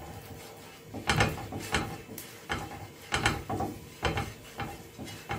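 Silicone pastry brush swept back and forth across the ridges of a grill pan, oiling it: a series of rasping scrapes, about two a second, stopping near the end.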